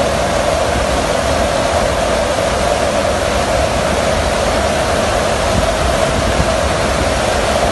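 Steady rush of wind and engine noise inside the cargo hold of a military transport aircraft flying with its rear ramp open, with an even hum running through it.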